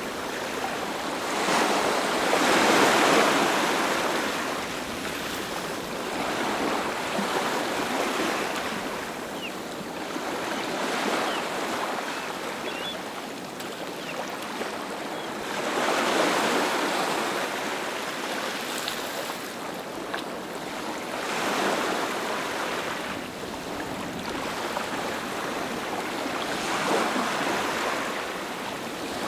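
Ocean surf: waves breaking in a steady rush that swells and ebbs every few seconds, the loudest wave about three seconds in.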